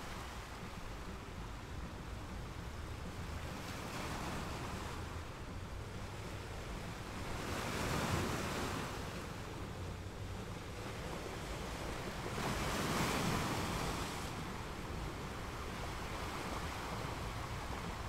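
Underwater ambient noise picked up by a camera in its housing: a steady hiss of water that swells twice, about 8 and 13 seconds in.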